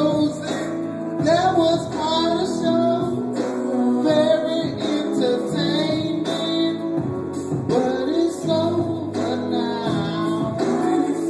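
A voice singing into a microphone over music, the song carrying on without a break.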